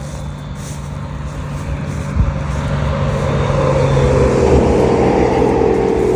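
An engine running steadily and growing gradually louder, with a steady higher note joining about three and a half seconds in.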